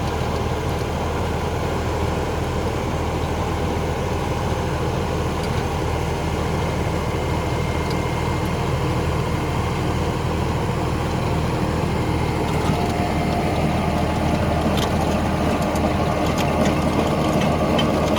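An engine running steadily at an even pace, with a low hum that does not change.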